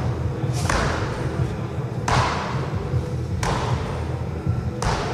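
Background music: a struck percussion hit about every second and a half, each ringing away, over a steady low bed of held tones.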